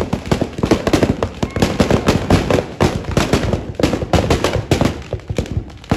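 Firecrackers bursting in a burning Ravana effigy: a rapid, irregular string of sharp bangs and crackles that eases briefly near the end.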